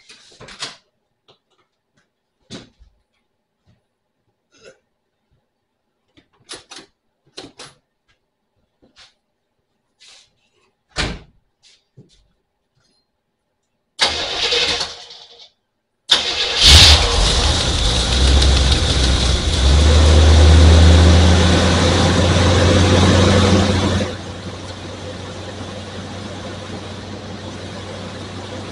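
A 1975 Corvette's 350 small-block V8 cranks briefly, then fires about two seconds later and runs loud and fast, its revs rising for a few seconds. It then settles into a steady run, heard much quieter from about two-thirds of the way in as the camera microphone cuts its level. Before the start, only a few small clicks and knocks.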